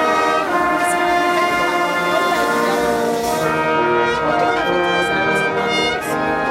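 Brass orchestra playing: trumpets and trombones sounding sustained chords together, the notes changing every half second or so.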